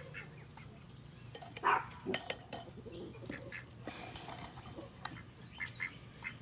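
Ducks quacking: a string of short calls, the loudest about two seconds in.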